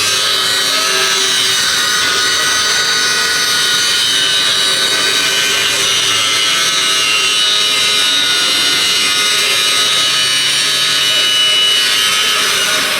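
A power tool working on metal, a loud, steady high-pitched whine with a rough grinding edge.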